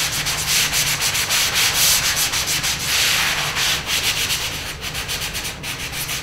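Rough side of a hand sanding sponge rubbed in quick back-and-forth strokes over dried drywall joint compound, rough-sanding the first coat smooth.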